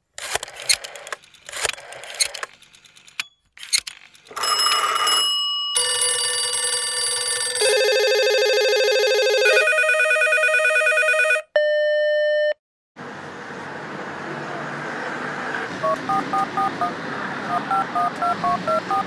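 Scratchy pen-on-paper writing sounds, then a run of electronic mobile phone ringtones in several different patterns and a short steady beep. After that comes a steady street hiss with short keypad beeps from about three seconds before the end as numbers are dialled on a payphone.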